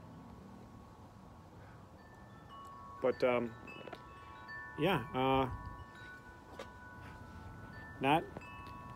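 Wind chimes ringing, several steady tones overlapping and sustained, with short bursts of a man's voice.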